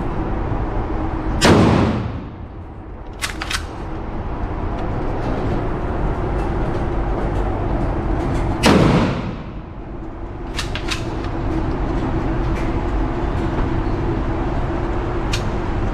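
Two blasts from a Mossberg 590 pump-action shotgun, about seven seconds apart, each ringing off the walls of an indoor range. A second or two after each shot come a couple of sharp clacks as the pump is worked to chamber the next shell.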